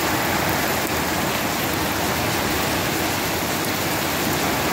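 Steady rain with wind picking up as a hurricane approaches: an even, unbroken rush.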